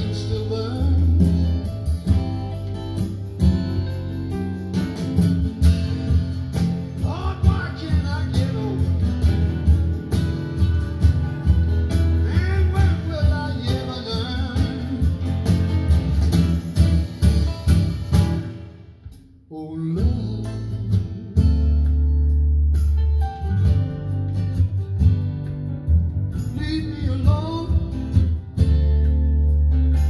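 A song with singing and guitar over a strong bass line, played through Bose 301 Series II speakers driven by a vintage Pioneer SX-950 stereo receiver. The music drops away briefly a little past the middle, then comes back in full.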